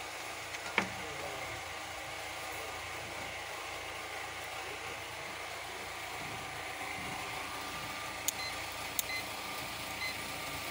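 Steady low background hum, with a sharp click about a second in and two small clicks followed by a few faint short beeps near the end as a digital multimeter and its test probes are handled.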